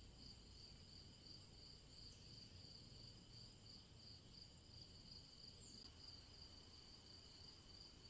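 Faint crickets chirping: a steady, high, pulsing trill of about three pulses a second.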